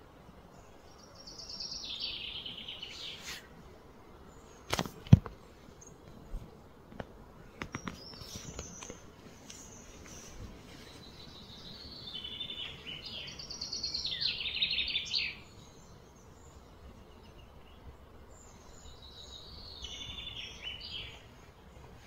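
Birds singing in three short trilling phrases, each about two seconds long, over a steady outdoor background. A sharp knock about five seconds in is the loudest sound, followed by a few fainter clicks.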